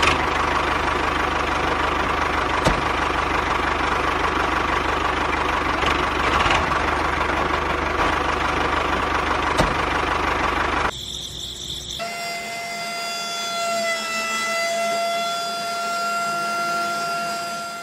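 Miniature DIY tractor and model rice-mill machinery running with a steady mechanical sound and a low pulsing. About eleven seconds in it changes to a quieter, steady whine with a clear pitch.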